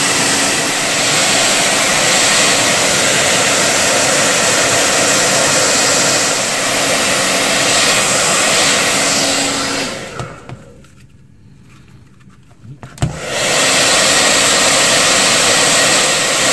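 Handheld hair dryer blowing steadily, used as a heat source to set the adhesive of grip tape on a pistol frame. About ten seconds in it goes quiet for roughly three seconds, then a short knock and it blows again.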